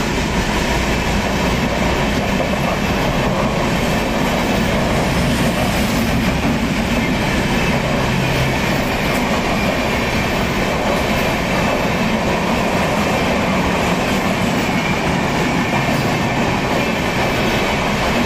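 The Shalimar–Chennai Coromandel Express running past, its coaches' wheels making a steady, loud rumble on the rails.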